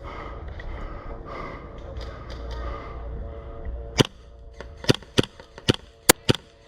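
Airsoft guns firing: about six sharp, separate snaps in the second half, irregularly spaced, after a few seconds of low rumble.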